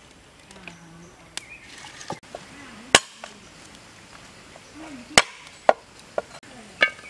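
A heavy cleaver chopping garlic cloves on a wooden cutting board: a few sharp, irregular chops starting about three seconds in, the loudest two about two seconds apart.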